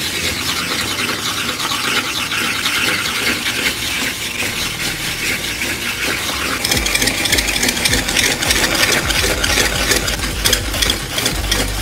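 Hand-cranked stainless steel coconut scraper grating coconut: the serrated blade spins against the flesh of a coconut half in a rapid, continuous rasping. It grows louder and harsher about two-thirds of the way through.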